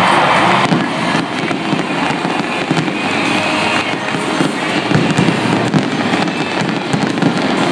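Fireworks display: dense crackling and popping from sparkling fountains and bursting aerial shells, many sharp cracks close together.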